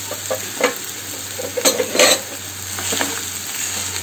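Onion and spice masala sizzling in oil in a non-stick frying pan while a wooden slotted spatula stirs and mashes in boiled potato. A few scraping strokes stand out over the steady sizzle, the loudest about halfway through.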